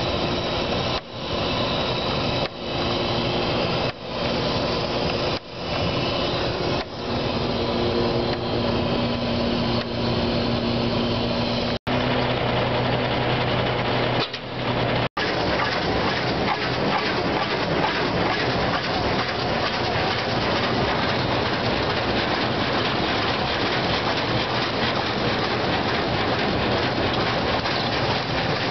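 Truck engine running steadily, a low even hum with a slight dip about every second and a half. After about fifteen seconds an even rushing noise covers it.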